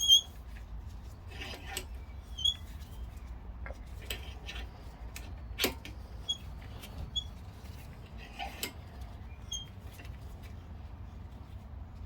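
Scattered metallic clicks, clinks and a few short scrapes of tools and brake parts being handled at a car's front brake caliper during a brake pad change, over a steady low hum.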